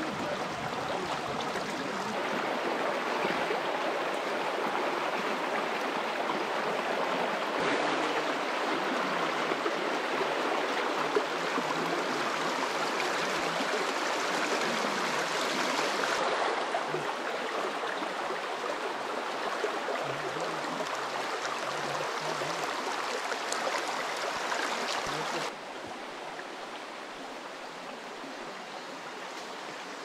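Steady rush of water running over rocks in a stream or small cascade. The sound shifts abruptly a few times and turns quieter for the last few seconds.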